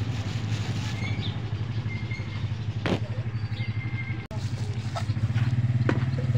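A motor running steadily in a low, even hum, with one sharp click about three seconds in.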